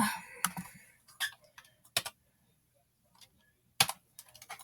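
Scattered keystrokes on a clicky ONN computer keyboard: a few single sharp key clicks, a pause of over a second, then a quick run of clicks near the end.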